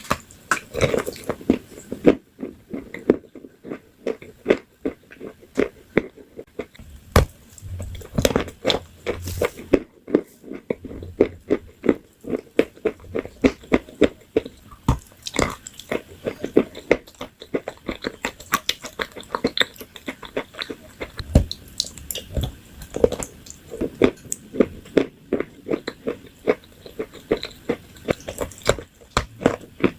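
A person biting and chewing crunchy food close to the microphone: rapid, irregular crackling crunches, several a second, with occasional louder bites.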